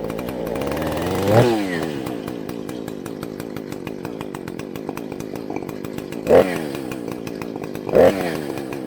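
Two-stroke chainsaw idling, blipped on the throttle three times, each a short rise and fall in engine speed: one about a second and a half in and two near the end.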